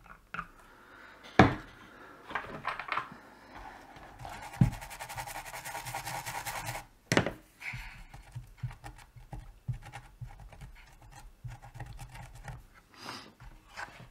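A circuit board being scrubbed clean around freshly resoldered joints: a cotton bud rubbing and scratching over the board, with a run of fast scrubbing strokes in the middle. A few sharp clicks and a knock from handling the tools and board.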